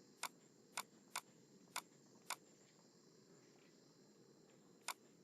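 Computer mouse clicking: six short, sharp clicks, five spread over the first two and a half seconds and one near the end, over a faint steady hiss.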